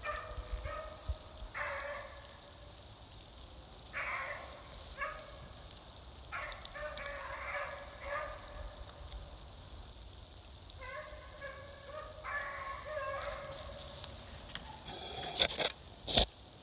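Beagles baying in repeated groups of pitched, ringing cries, the sound of hounds running a rabbit's scent. A couple of sharp knocks come near the end.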